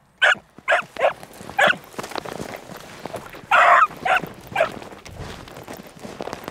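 Young beagle baying on a rabbit's scent trail: about seven short, loud bays in the first five seconds, one of them longer, about three and a half seconds in.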